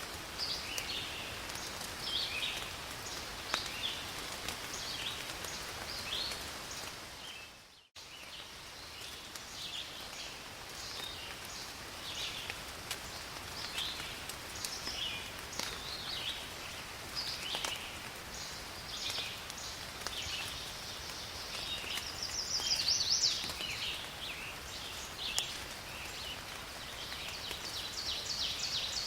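Steady rain falling on forest foliage, with birds chirping over it again and again. About eight seconds in the sound fades out briefly and cuts back in, like a join in a looped recording.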